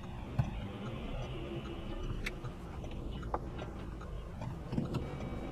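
Low steady rumble of a car interior picked up by a dashcam, with a few sharp isolated clicks scattered through it.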